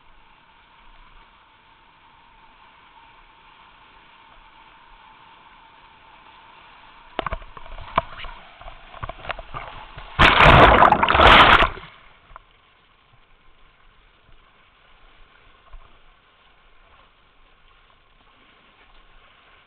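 Whitewater rushing steadily past a kayak, with paddle splashes and water slapping the boat from about seven seconds in. About ten seconds in, a very loud rush of water crashes over the camera for nearly two seconds as the kayak stands on end in the rapid, then the water settles back to a quieter steady flow.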